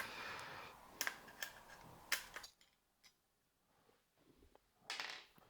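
A few faint, scattered metal clicks and taps from hand tools working on a bicycle crank's chainring bolts, with a short scrape near the end.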